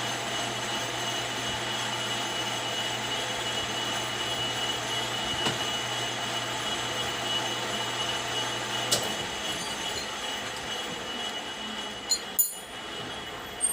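Metal lathe running, a steady mechanical whine with a thin high tone over it. About nine seconds in, the low hum stops and the sound fades away, with two sharp metallic clicks near the end.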